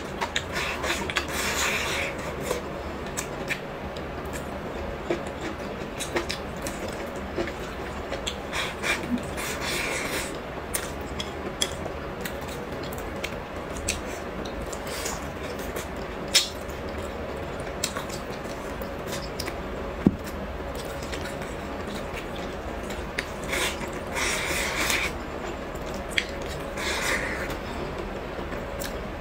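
Close-miked eating sounds: chewing mouthfuls of rice and braised pork, with wooden chopsticks clicking and scraping against a porcelain bowl. A few sharp clicks stand out.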